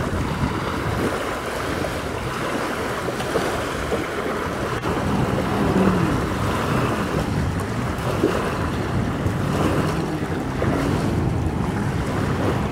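Wind buffeting the microphone and water lapping, with a Sea-Doo jet ski's engine running out on the water, its pitch wavering as it speeds and turns.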